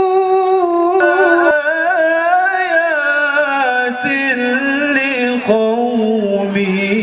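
A man's melodic Qur'an recitation (tilawah) in a long, ornamented chanted line: a held note that then winds in turns and slowly sinks lower, with a short breath about five and a half seconds in.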